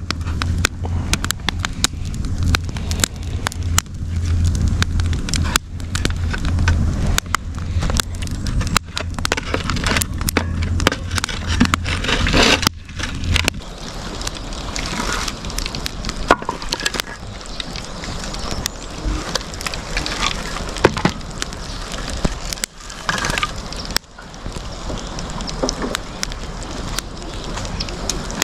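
Wood campfire burning in a steel fire ring, crackling with frequent sharp pops and snaps. A low steady rumble underneath stops about halfway through.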